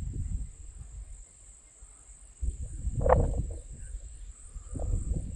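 Insects chirring steadily in a continuous high-pitched trill. Bursts of low rumble come and go underneath, dying away about a second in and returning strongly about two and a half seconds in.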